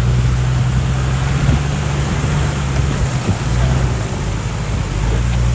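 Off-road vehicle's engine running steadily at low revs, a constant low drone with an even hiss over it.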